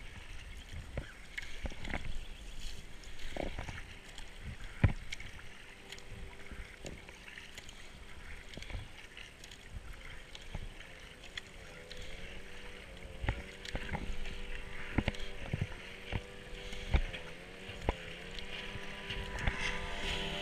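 Kayak paddle strokes splashing into the water one after another. From about halfway, a powerboat's engine joins in, its pitch wavering up and down and growing louder as the boat comes close.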